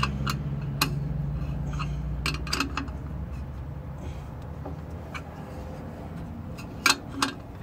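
Light metallic clinks and taps of steel nuts, bolts and washers being handled against a lathe faceplate while an aluminium block is clamped to it, with two sharper clinks about seven seconds in. A low hum underneath fades away over the first few seconds.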